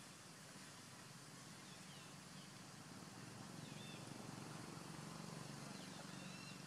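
Faint outdoor woodland ambience: a steady hiss and a low hum that swells a little in the middle, with a few faint, short high chirps.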